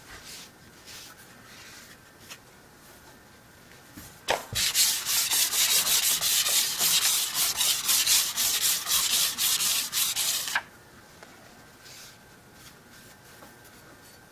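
Steel cabinet scraper blade rubbed back and forth on 600-grit abrasive paper to smooth its surface and edges. After a few faint strokes, a fast, even run of about four strokes a second starts around four seconds in and stops suddenly about six seconds later.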